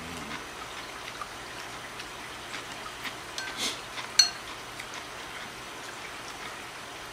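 Chopsticks stirring chilled ramen noodles in sauce in a ceramic bowl: soft wet mixing sounds, with one sharp clink of chopsticks against the bowl about four seconds in, the loudest sound.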